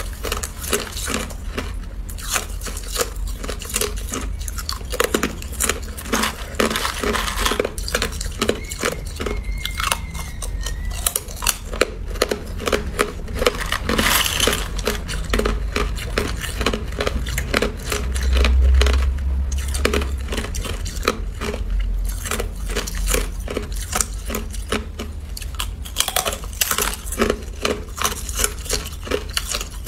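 Thin pieces of hard, clear ice being bitten and crunched between the teeth, a fast, continuous run of crisp cracks and crackles.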